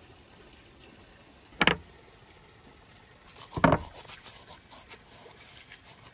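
Two sharp wooden knocks, about two seconds apart, as bamboo bowls are set down on a wooden board, then a faint dry crackling of dried herbs crumbled between fingertips.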